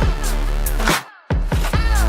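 Electronic dance music with a heavy bass line and gliding synth lines, cutting out abruptly for a moment about a second in before coming back in.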